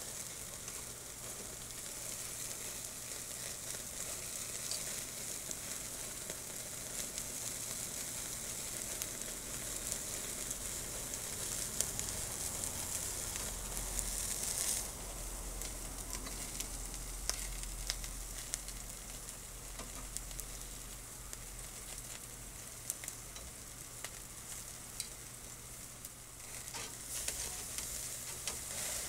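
Lobster tails and vegetables sizzling on a wire grill grate over a charcoal fire, a steady hiss with scattered crackles and pops.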